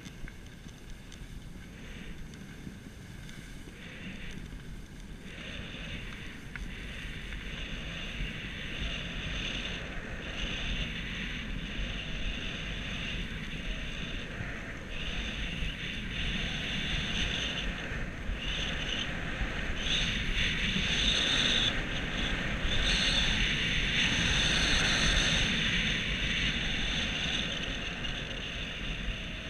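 Skis sliding and scraping over packed snow, a hiss that swells and drops away with the turns, over a steady low rumble of wind on the microphone. It grows louder in the second half as the run speeds up.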